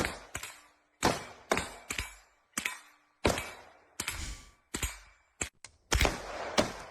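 Gunshots fired one after another at uneven intervals, about a dozen in all, each sharp crack trailing off in a short echo.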